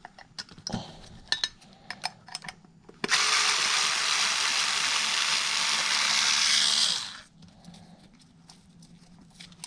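Small cordless electric screwdriver running steadily for about four seconds as it backs a screw out of a carburettor body, then cutting off sharply. A few light clicks come before it.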